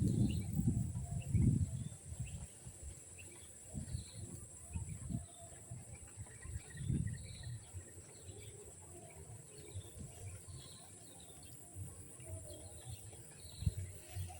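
Outdoor ambience: faint short chirping calls about once a second over a steady high-pitched drone, with low bumps of handling or wind on the microphone in the first two seconds.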